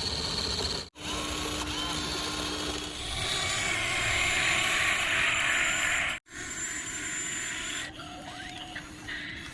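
Small electric motors and plastic gearboxes of toy RC construction vehicles whirring. The sound cuts out abruptly twice, and it is loudest and hissiest in the middle stretch.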